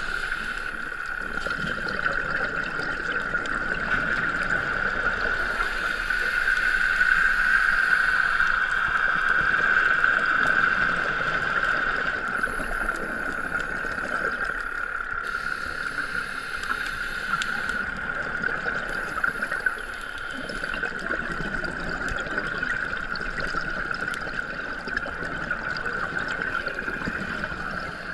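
Underwater sound picked up by a diver's camera: a steady, unbroken high hum over a hiss of water and bubbles.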